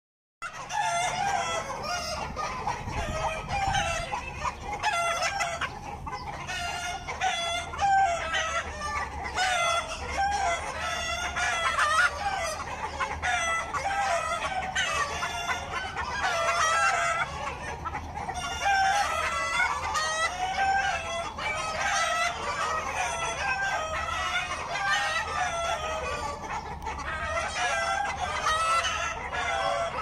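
A flock of chickens clucking, with crowing among the many overlapping calls throughout.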